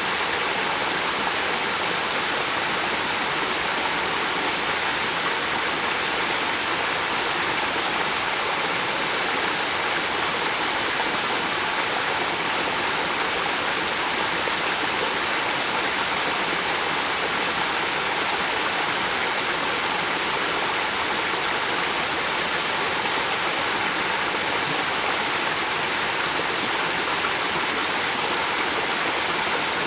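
River water flowing steadily, an even rushing sound with no let-up or change.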